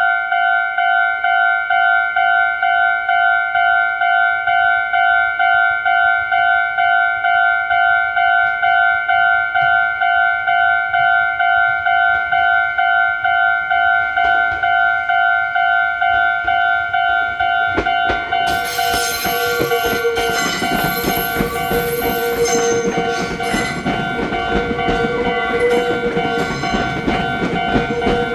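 A railway level-crossing warning bell sounds its electronic tone about twice a second throughout. From about 18 seconds in, a Meitetsu electric train passes, its running noise rising, with its wheels squealing on the track.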